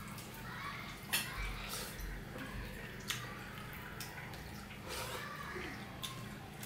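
Wet squelching of rice being kneaded by hand into curry and dal on a steel plate, with a few sharp wet clicks.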